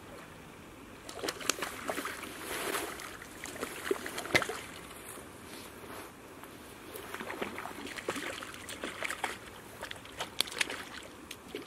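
Water splashing and sloshing close to the bank in two spells of irregular splashes and sharp knocks, the first starting about a second in and the second around seven seconds in, as a hooked trout is played on a fly rod at the water's edge.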